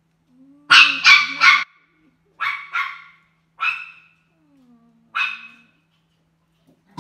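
A dog barking seven times: three quick barks about a second in, then two more, then two single barks spaced out.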